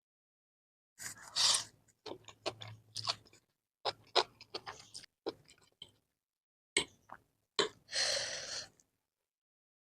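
Close-up eating sounds of spicy stir-fried instant noodles being slurped and chewed, in separate bursts of wet mouth clicks with silent gaps between. Two longer hissy bursts stand out, about a second in and about eight seconds in.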